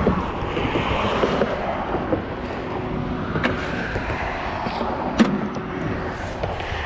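Steady noise of road traffic passing on a highway, with two sharp clicks about three and a half and five seconds in.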